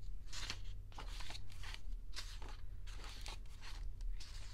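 Pages of a glossy photo book being turned and handled, paper rustling and swishing in a string of short bursts, with a low steady hum underneath.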